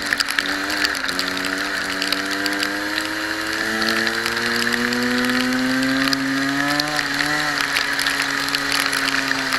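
Kart engine heard from on board, its pitch climbing steadily as the kart accelerates. The pitch dips briefly about a second in and again around seven seconds in, with rapid scattered clicks over the engine throughout.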